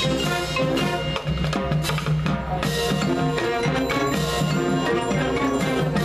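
High school marching band playing its field show: brass with drums and the front ensemble's marimbas and other mallet percussion.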